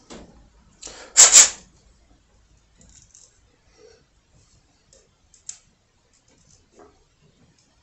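Hands working with small wiring parts: a brief, loud clattering rattle of small hard pieces being handled about a second in, then faint clicks and rubbing as a plastic wire nut is twisted onto two wires.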